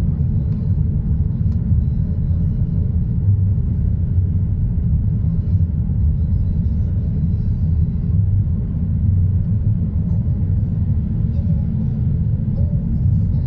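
A car driving at steady road speed, heard from inside the cabin: a continuous low rumble of engine and tyre noise.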